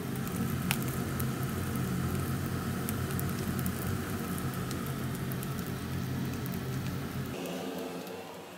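Pork intestines sizzling on a charcoal mini brazier, with scattered sharp pops of spitting fat over a steady low hum from the smoke-extraction blower. About seven and a half seconds in the sizzle and low hum cut away, leaving a quieter, thinner hum.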